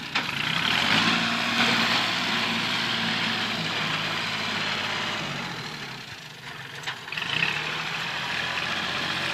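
Kubota L3608 tractor's diesel engine running steadily under load as its front blade pushes soil. The sound drops for a moment about six seconds in, then comes back.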